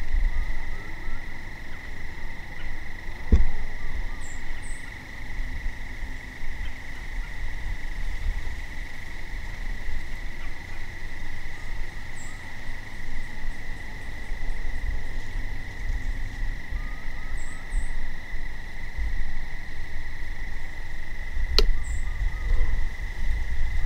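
Steady chorus of crickets, an unbroken high trill, over a low rumble. A sharp click comes about three seconds in and another near the end.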